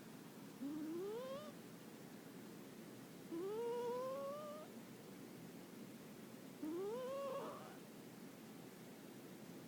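Scottish Fold cat snoring in its sleep. There are three pitched snores, each about a second long and rising in pitch, about three seconds apart.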